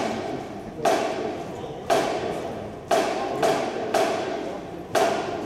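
Drum hits in a steady beat, about one a second, each ringing on until the next.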